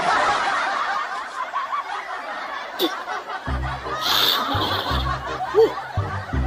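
Laughter, dense and many-voiced, like a laugh track. About halfway through, music with a steady bass beat comes in under it.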